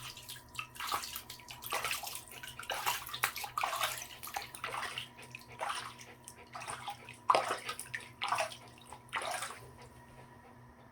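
Water splashing and sloshing in a bathtub around a small dog in a half-bath, in a dozen or so short bursts that die away near the end.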